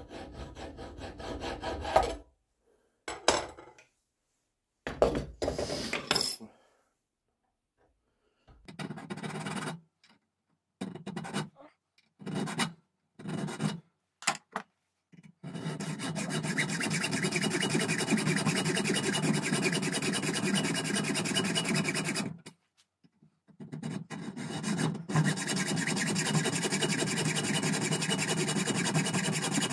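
Metal being worked by tool on a small part for a rifle's peep sight: several short bursts of scraping, then two long stretches of steady scraping and cutting noise, split by a brief pause about three quarters of the way through.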